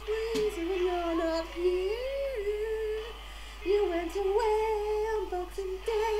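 A woman singing a wordless melody into a handheld microphone, mostly held notes that slide from one to the next, with a short break about three seconds in.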